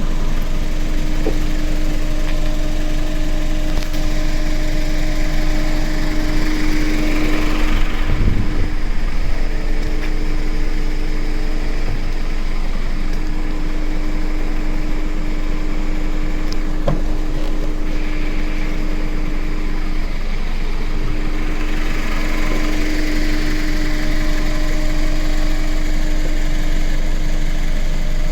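Suzuki Let's 4 scooter's small four-stroke engine running steadily with a loud abnormal noise, swelling twice along the way.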